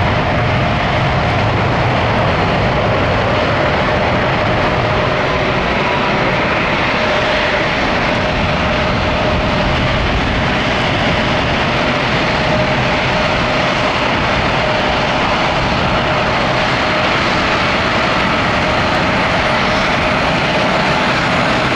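Bombardier Global 7500 business jet's twin GE Passport turbofans running at taxi power: a steady jet rush with a thin whine held at one pitch.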